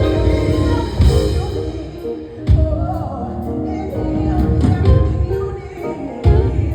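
Music with singing: a song over a steady drum beat and bass.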